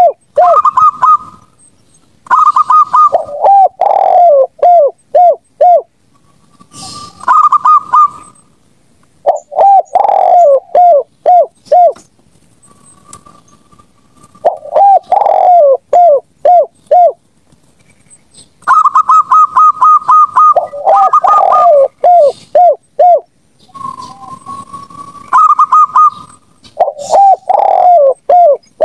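Zebra doves and spotted doves cooing, phrase after phrase with short pauses. Each phrase is a quick run of higher coos followed by a run of lower, hooked coos. Now and then a single drawn-out coo leads into a phrase.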